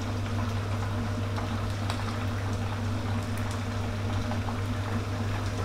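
Chicken wings deep-frying in hot oil in a pan over medium-high heat: a steady bubbling sizzle with faint scattered crackles, over a steady low hum.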